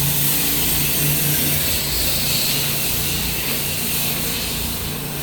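Pressure washer running: a steady engine drone under the continuous hiss of the high-pressure water spray.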